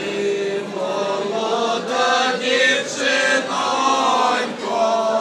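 A group of people singing together at the table, holding long drawn-out notes.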